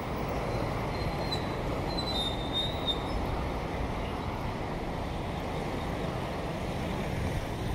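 Steady engine and road noise from a motorcycle riding through town traffic. A brief high squeal, like a brake, comes in about a second and a half in and lasts a second or two.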